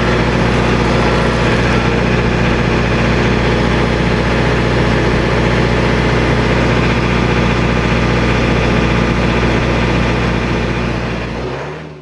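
Diesel engine of an RK55 compact tractor running steadily at a constant speed, with the backhoe mounted.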